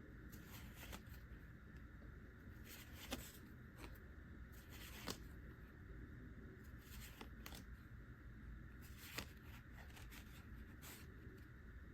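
Faint handling of Pokémon trading cards: cards sliding against one another as they are flipped through by hand, with a few soft clicks, over a low steady room hum.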